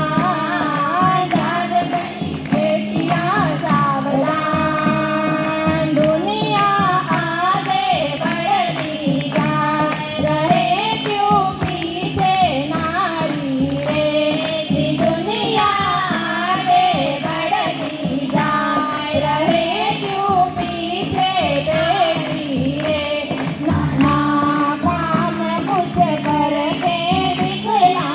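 A children's choir singing an Indian devotional song in unison, with a steady instrumental drone beneath the voices.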